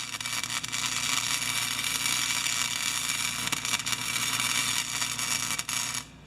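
Electric arc welding on the thin steel of a mower grass-bag frame: a steady crackling hiss that cuts off about six seconds in. The welder is unsure whether he is joining the thin metal or burning through it.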